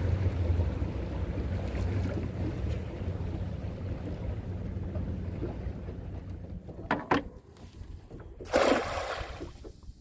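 Small boat motor running with water washing past, fading away over the first six seconds. Then a short splash about seven seconds in and a louder splash near the end, as a cast net lands on the water.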